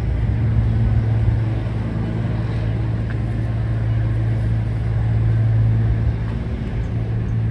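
A tour boat's engine idling before departure: a steady low hum over a low rumble, unchanging throughout.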